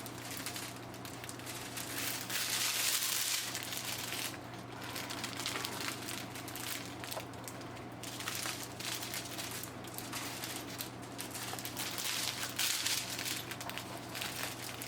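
Small plastic bags of diamond painting drills rustling and crinkling continuously as they are handled and gathered together, with many small crackles, over a steady low hum.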